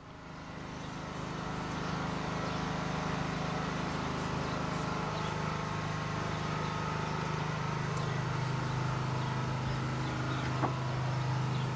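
A machine running steadily with a low hum, fading in at the start, with a faint click near the end.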